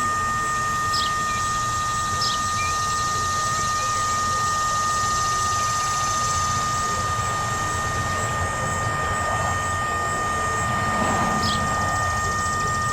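Whelen WPS-3016 electronic siren giving out only a steady electrical buzz of two held tones instead of its siren signal: the siren is malfunctioning during its test, which the owner guesses is because it could not rotate to its set position.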